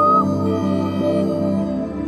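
Ambient background music of slow, sustained tones; a held high note stops just after the start.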